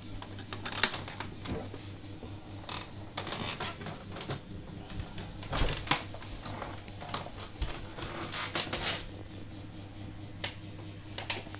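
Flight case hardware being handled as the case is unlatched and its front lid taken off: an irregular scatter of sharp metal clicks and knocks from the butterfly latches and case, over a steady low hum.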